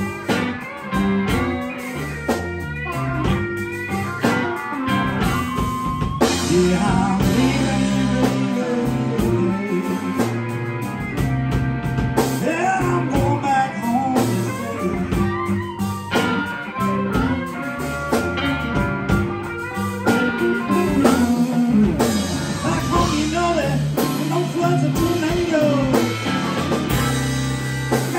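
Live blues band playing a slow blues: electric lead guitar playing bent, sliding notes over electric bass and drum kit.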